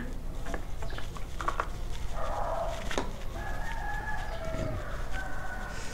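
A rooster crowing, one long drawn-out crow in the second half, with a few sharp clicks before it.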